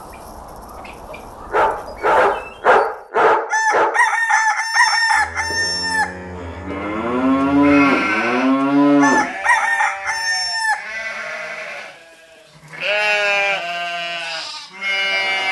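A series of drawn-out animal calls, some rising and falling in pitch, with a wavering, bleat-like one near the end.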